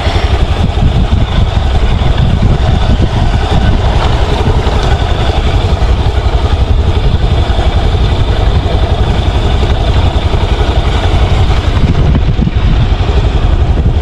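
Motorcycle engine running while the bike rides along a rough dirt track, under a heavy low rumble.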